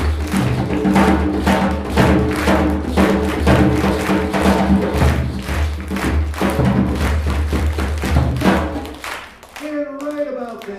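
Hand drums and a large mallet-struck drum playing a fast samba rhythm together, many strokes a second over a steady low drum boom. The drumming stops about nine seconds in and a voice follows.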